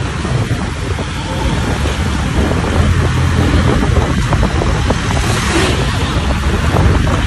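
Steady ride noise from a motorcycle moving through traffic: a loud, continuous low rumble of engine, tyres and wind buffeting the microphone.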